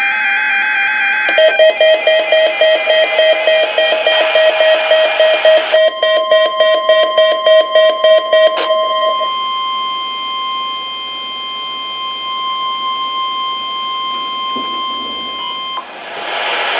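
NOAA Weather Radio alert signals for the Required Weekly Test. First comes the tail of the SAME digital header, a warbling data screech. About a second in, a rapidly pulsing lower beep joins it. Then, from about six seconds in, the steady 1050 Hz warning alarm tone holds for about ten seconds and cuts off near the end.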